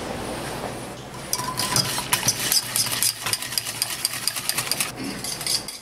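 Wire whisk beating milk, egg yolk and spice mixture in a stainless steel saucepan, its wires clicking rapidly against the sides of the pan. The clicking starts about a second in, after a softer swishing.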